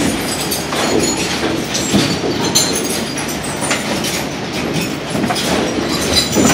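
Waste-sorting conveyor belt and plant machinery running: a steady mechanical rattle with irregular knocks and clatter.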